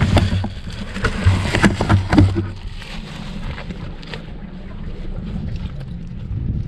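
Close handling noise, with knocks and rustles of hands working right at the microphone for the first two and a half seconds or so. After that comes a steady low rumble of wind on the microphone.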